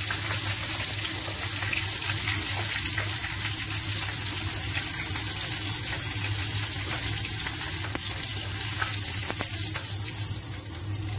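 Baby pigeon pieces deep-frying in hot oil, a steady sizzling hiss with scattered crackles and pops. The pieces are fried through and are being lifted out of the oil.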